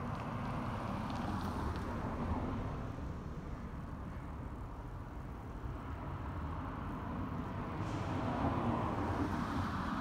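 Road traffic: cars passing on the street, the tyre and engine noise swelling near the start and again from about eight seconds in.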